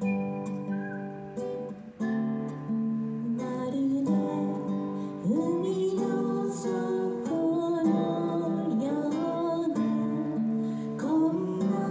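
Acoustic guitar strumming held chords, played live; a singing voice comes in with the melody about five seconds in, over the guitar.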